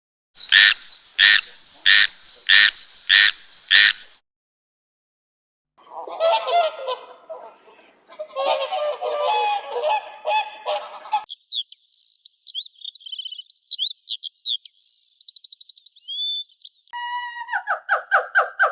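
A sequence of different animal calls: first six loud, evenly spaced calls about two-thirds of a second apart, then after a pause a dense jumble of overlapping calls, then a long run of high chirps and whistles, and near the end a lower pitched call that steps down in pitch.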